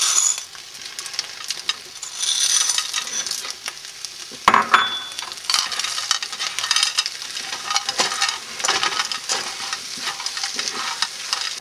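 Food sizzling and frying in a hot skillet while it is stirred, with a utensil clicking and scraping against the pan, and a sharper knock about four and a half seconds in.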